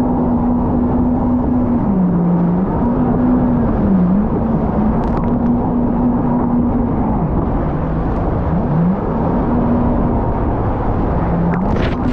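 Jet ski engine running under way, its pitch dropping briefly and climbing back several times as the throttle is eased and reopened, over a steady rushing noise.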